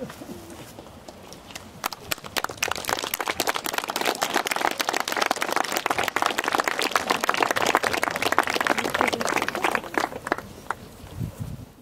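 Crowd applauding outdoors, a dense patter of many hands clapping that swells about two seconds in and dies away near the end.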